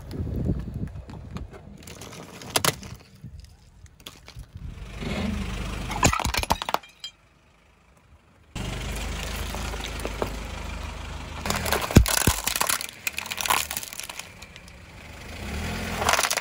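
A car tyre rolling slowly over things laid on asphalt, in several short cuts: a low rumble of the tyre on the road, soft squashing of jelly, and sharp cracks and crunches as brittle things, among them a plate, break under the wheel. The loudest is a single sharp crack about twelve seconds in, and there is a brief near-silent gap a little before the middle.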